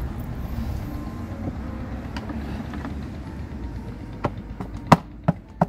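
Black plastic air-filter housing cover being pressed onto the engine: four sharp plastic clicks in the last second and a half as it seats and its clips snap shut, over a steady low background rumble.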